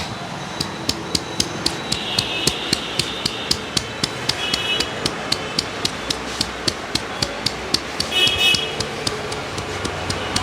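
Rhythmic hand-tapping of a head massage, sharp claps at about three or four a second. Short high-pitched tones sound three times over the tapping.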